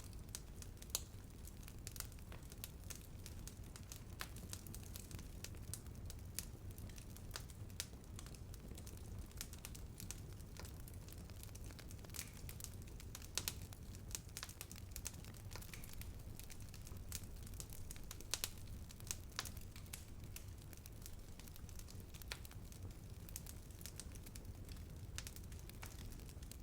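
Bonfire burning, wood crackling and popping at irregular intervals, with a few sharper, louder pops, over a steady low rumble of the flames.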